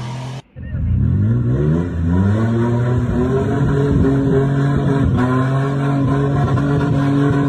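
Toyota Land Cruiser Prado's engine revving up, its pitch rising over about two seconds, then held at steady high revs as the 4x4 pushes through deep mud. The sound begins after a brief gap about half a second in.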